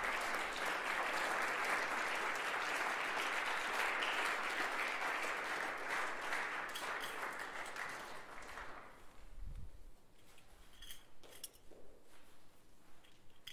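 Audience applauding, steady for about eight seconds, then dying away, leaving a few faint knocks.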